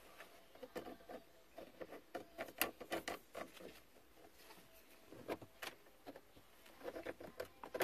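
Faint, scattered plastic clicks, taps and scrapes as a plastic panel removal tool is worked in under a 2001 Dodge Grand Caravan's lower dash trim panel to pry it loose.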